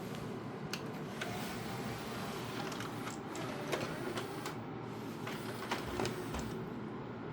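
Loading mechanism of a Pioneer CLD-R5 LaserDisc player running: a small motor whirring steadily through a belt drive, with a handful of sharp mechanical clicks scattered through it.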